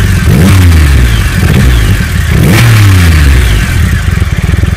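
Triumph Rocket III's inline-triple engine being blipped: the revs rise sharply and sink back toward idle, twice, about half a second in and again about two and a half seconds in.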